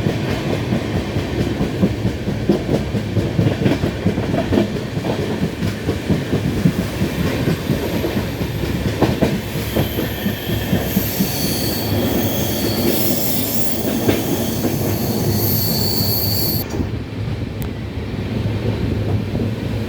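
Passenger train running, heard from aboard: a steady rumble with wheels clattering over the rail joints. A high-pitched wheel squeal sets in about halfway through and cuts off suddenly near the end.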